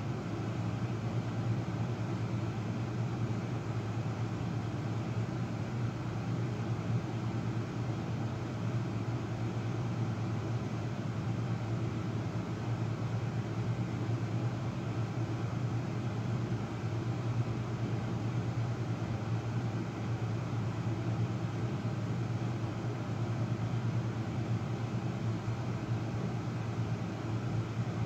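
A steady low mechanical hum over even background noise, unchanging throughout.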